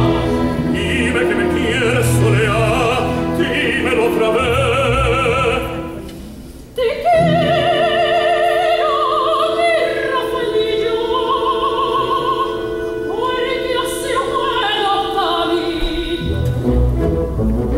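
Operatic soprano and tenor singing a Spanish zarzuela duet with a symphony orchestra. The music thins out briefly about six seconds in. Then the soprano sings with wide vibrato, climbing higher, over long held orchestral chords, and the fuller orchestra comes back in near the end.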